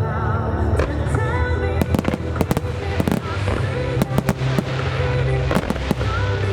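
Fireworks shells bursting in quick, irregular succession, a dozen or so sharp cracks and bangs, over loud music with a sustained bass and a wavering melody line.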